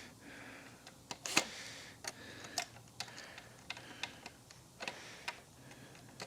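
Scattered light clicks and taps, about a dozen, irregularly spaced: parts of a Kirby vacuum being handled while its motor is taken out of the chassis.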